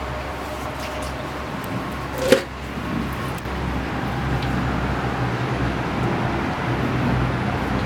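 Wood fire burning with a steady low rumble, and one sharp pop a little over two seconds in.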